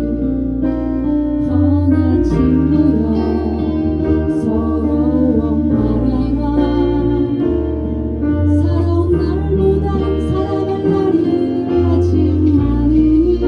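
Live band music: a bass line in long held notes that change every second or two, under keyboard chords and a melody line.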